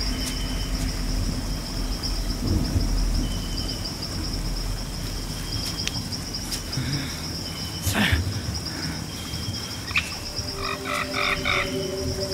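Animal chorus: frogs croaking over a steady high, insect-like trill, with a burst of rapid repeated calls near the end and a single sharp knock about eight seconds in.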